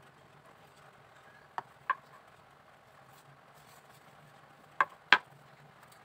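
Light hand work on a bamboo cage ring and its wooden base: two pairs of short sharp clicks or taps, each pair about a third of a second apart, one about a second and a half in and one near the end, over a faint steady low hum.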